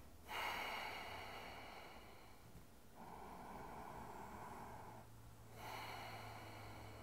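A man breathing slowly and audibly while holding a deep squatting twist in yoga: three long breaths, each about two seconds, the first starting sharply.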